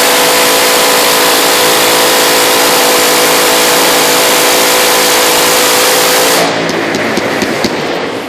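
Very fast-firing machine gun in one long continuous burst, the shots so rapid they merge into a steady buzzing roar. It cuts off about six and a half seconds in, followed by a few scattered reports and echo.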